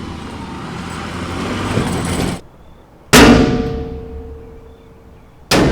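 Sound-effects montage: a rushing, rumbling noise swells for about two seconds and cuts off. After a short gap comes a sudden loud impact with a long ringing decay, and a second sharp hit lands near the end.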